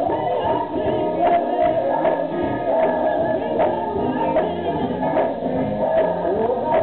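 Gospel singing: a woman sings lead into a microphone while a group sings along. Hand claps keep a steady beat, about two a second.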